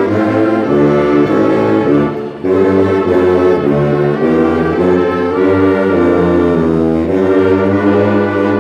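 Baritone saxophone (low-G model) and bass saxophone playing a slow hymn together in low harmony, with long held notes and a short break for breath about two and a half seconds in.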